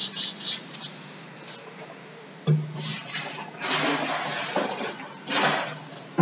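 Chalk scraping on a blackboard in short, rasping strokes as writing is done, in a few separate bursts with pauses between.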